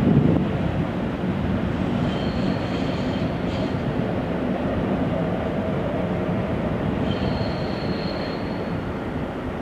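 A double-deck regional train hauled by DB class 111 electric locomotive 111 148-3 rolls out over the station's points with a steady rumble of wheels on track. A high wheel squeal rises twice, about two seconds in and again about seven seconds in.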